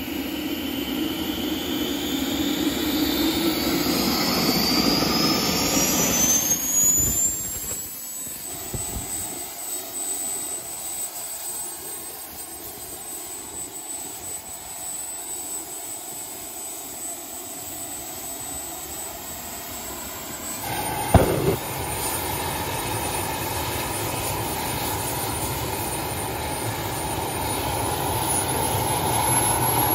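Small jet turbine engine on a mini jet truck running: a high whine climbs steeply as it spools up, then holds steady over a rushing exhaust noise. About two-thirds through there is a sharp loud pop, after which it runs louder.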